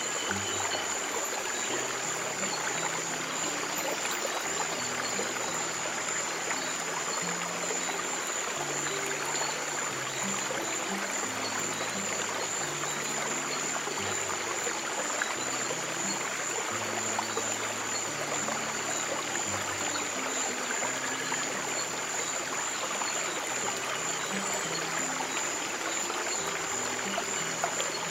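Running water of a stream flowing steadily, with slow, soft piano notes held low underneath and a thin steady high tone.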